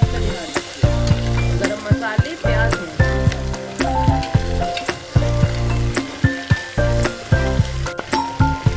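Sliced onions and whole spices sizzling as they fry in hot oil in a pressure cooker, stirred with a steel spoon that clicks and scrapes against the pot. Instrumental background music with a steady low beat plays over it.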